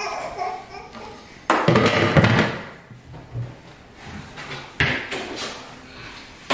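Kitchen clatter during clean-up. About a second and a half in there is a sharp knock that rattles on and fades over about a second, like a cabinet door or drawer shutting or a cutting board being set down. A smaller knock follows near five seconds.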